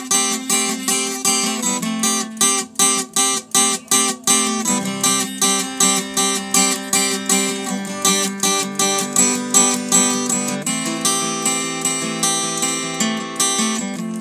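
Solo acoustic guitar instrumental played on a Taylor W14, strummed in a steady, even rhythm.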